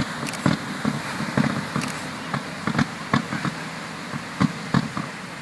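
Fireworks display: an irregular run of sharp bangs and pops, about a dozen in a few seconds.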